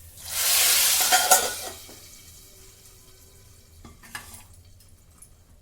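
Hot tadka of oil, cumin, garlic and dried red chillies poured into cooked dal, sizzling loudly for about a second and a half and then dying down. A couple of light metal clinks follow about four seconds in.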